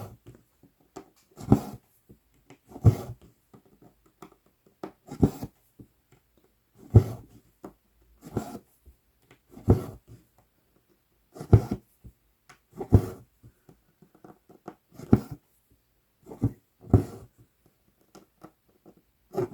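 Embroidery needle and floss being drawn through 11-count Aida cloth, stitch after stitch: a short scratchy pull of thread through fabric about every second and a half.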